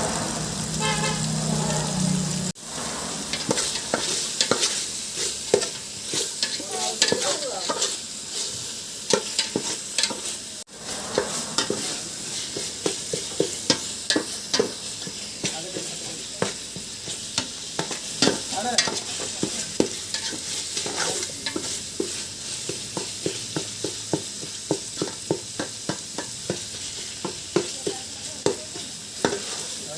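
Chicken frying and sizzling in a pan while a spatula stirs it, with frequent sharp clicks and scrapes of the spatula against the pan. The sound briefly cuts out twice.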